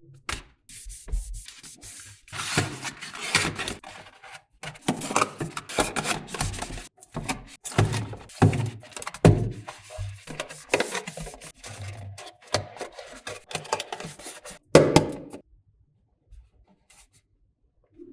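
A paperboard product box being handled: irregular rubbing and sliding with light knocks, stopping about three-quarters of the way through.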